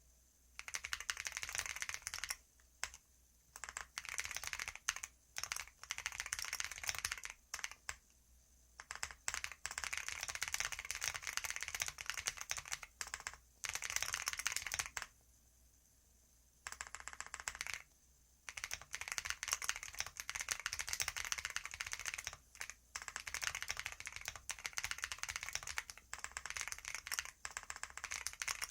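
Fast typing on a computer keyboard: keys clattering in runs of several seconds, broken by short pauses.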